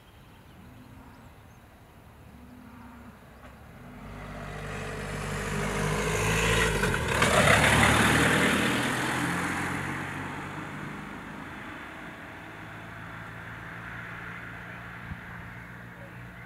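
A road vehicle driving past. Its engine and tyre noise build over a few seconds, peak about halfway through, and the engine note drops in pitch as it passes, then fades away.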